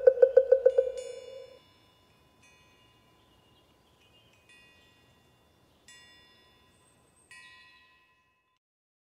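A fast, even roll of pitched knocks, about five or six a second, dying away in the first second and a half. It is followed by a few soft, sparse chime strikes that ring out one at a time every second or two.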